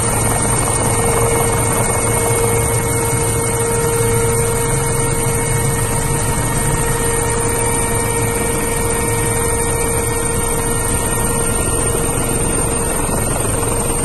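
Helicopter noise heard from inside the aircraft: a loud, even rush of engine and rotor sound with a few constant tones running through it.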